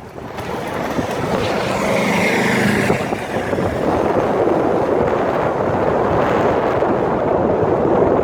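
Strong wind buffeting the microphone in a steady, heavy rumble. Briefly, about two seconds in, a droning motor-like tone with a falling whine rides over it.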